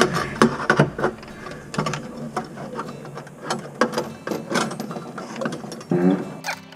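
Irregular clicking and rattling of a long tubular faucet-mounting wrench as it is turned on the faucet's mounting nut under the sink. A steady pitched sound comes in near the end.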